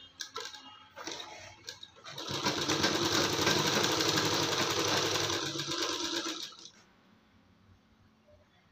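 Straight-stitch sewing machine running steadily for about four seconds as a seam is sewn through doubled cloth, then slowing and stopping. A few light clicks of the fabric and machine being handled come before it starts.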